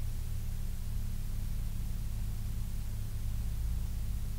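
Steady low hum and rumble inside a stationary car's cabin, with a faint hiss over it.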